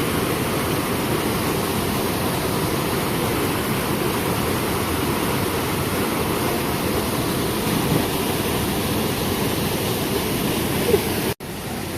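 Waterfall water pouring steadily, a constant rush of noise. It cuts out for an instant near the end and comes back slightly quieter.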